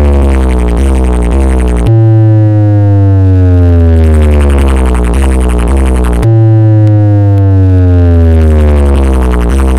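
A large DJ speaker stack plays a loud synthesized test tone over heavy deep bass. The tone glides steadily downward in pitch and jumps back up to start again about every four and a half seconds, once about two seconds in and again about six seconds in.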